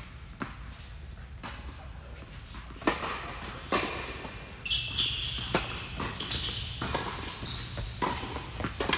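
Tennis balls being struck by rackets and bouncing on an indoor hard court during a doubles rally: a string of sharp, separate knocks, the loudest about three seconds in. From about halfway through, short high squeaks join them, from sneakers on the court.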